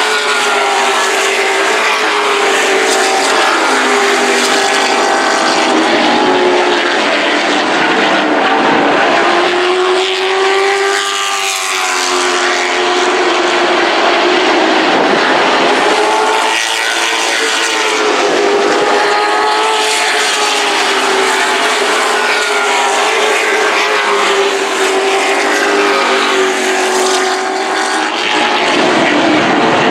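Several super truck racing engines running hard on a short oval track. The engine note rises and falls as the trucks lap, dipping and climbing again about a third of the way in and once more shortly after the middle.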